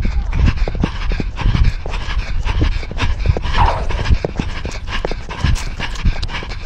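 A running cat panting fast and hard, heard very close from a camera worn on its collar, with a constant rumble and irregular knocks, several a second, as it moves.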